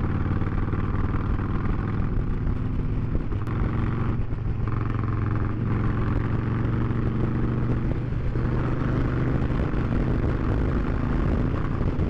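Motorcycle engine running at a steady highway cruise, heard from the bike's own camera mic.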